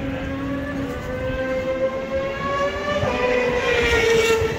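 Racing motorcycle engines running at high revs on the circuit, the pitch climbing slowly and then dropping suddenly about three seconds in.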